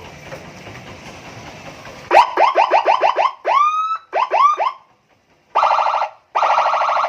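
Aftermarket multi-tone police-escort siren on a motorcycle, played through its 25-watt speaker and switched between tones. About two seconds in it starts with a quick run of rising chirps, then a few slower rising whoops, a short pause, and then a fast steady warble.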